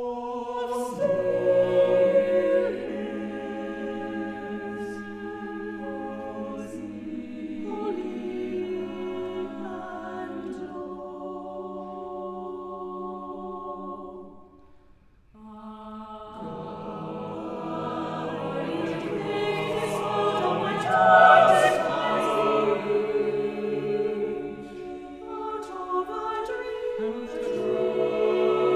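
Mixed chamber choir singing unaccompanied in long held chords. About halfway through the singing dies away into a brief pause, then comes back in and swells to its loudest a few seconds later.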